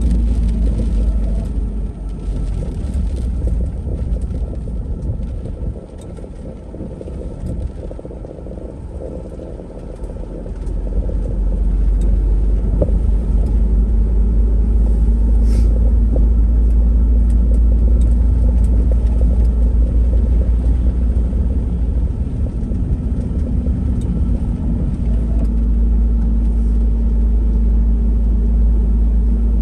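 Mercedes Sprinter camper van driving on wet roads, heard from inside the cab: a steady low rumble of engine and tyres with a faint hum. It drops quieter for a few seconds about six seconds in, then comes back louder and stays steady from about eleven seconds on.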